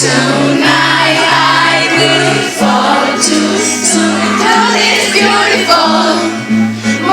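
Live pop music: singing over sustained low keyboard or bass notes that change about once a second, with other voices joining in like a choir.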